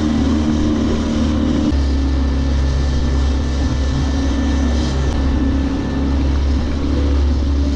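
Small outboard motor running steadily, pushing an inflatable boat at trolling speed, its low hum under a steady rush of wake water and wind.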